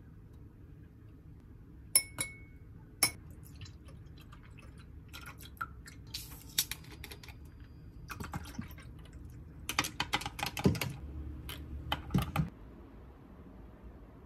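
Irregular light clicks and clatters of kitchen utensils and dishes being handled. Two sharp knocks come in the first few seconds, the first followed by a brief ringing tone, and denser clusters of clatter come in the second half.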